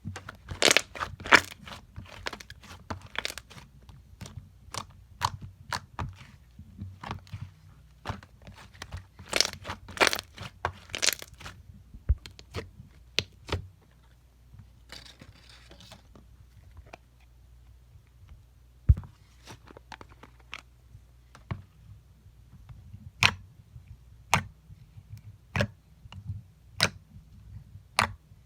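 Slime being squeezed and poked by hand, giving irregular sharp pops and crunchy clicks, with a brief soft squishing hiss about halfway through.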